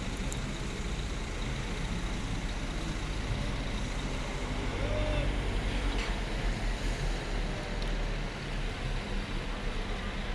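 Mercedes-Benz O500R 1836 coach's rear-mounted six-cylinder diesel running as the bus drives slowly past at close range: a steady low rumble that grows somewhat louder around the middle.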